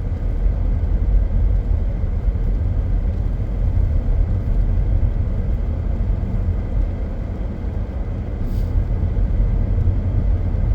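Steady low rumble inside a moving car's cabin: engine and road noise while driving down a mountain road.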